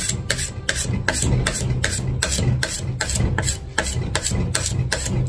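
Wax scraper scraping cooled wax off a snowboard base in quick, even, repeated strokes, about three a second.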